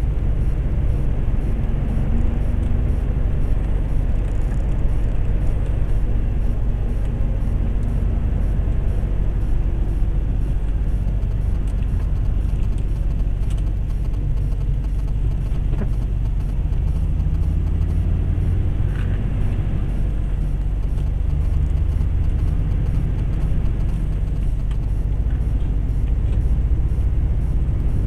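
Lorry driving at a steady road speed: a continuous low engine drone with tyre and road rumble, the engine note drifting slightly up and down.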